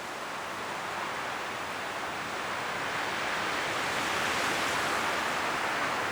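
High wind blowing through forest trees, rustling autumn leaves in a steady hiss. A gust builds slowly, peaks about two-thirds of the way in, then eases slightly.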